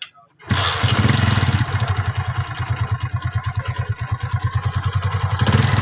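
Honda CD70's small single-cylinder four-stroke engine starting about half a second in, then running with a fast, even putter, a little louder near the end. It is just back together after a timing chain replacement.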